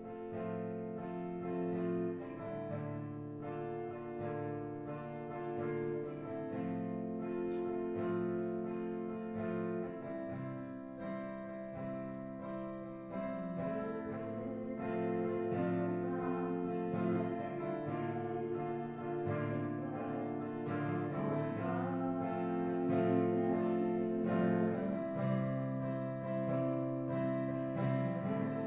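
Instrumental church worship music led by guitar, with plucked notes over sustained chords, growing a little louder in the second half.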